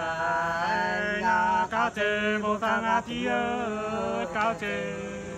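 Two men singing sli, a Nùng folk courting song, unaccompanied, in long held notes with wavering turns in pitch and a few brief breaks between phrases.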